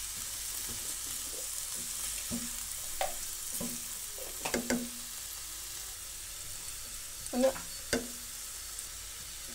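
Shredded Chinese cabbage and carrot sizzling in butter in a pan as they are stir-fried with a silicone spatula. A steady frying hiss runs under a few brief louder scrapes as the vegetables are turned.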